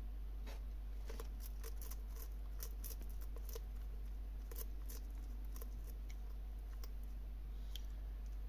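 Bearded dragon chewing a cricket: a run of small, crisp crunching clicks, thick at first and thinning out toward the end, over a steady low hum.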